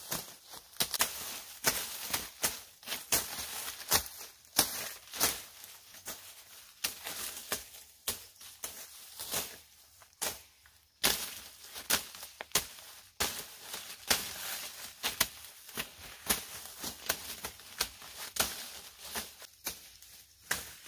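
Machete chopping through dry corn stalks: irregular sharp chops and cracks, sometimes several a second, amid the crackling rustle of dry stalks and leaves being handled.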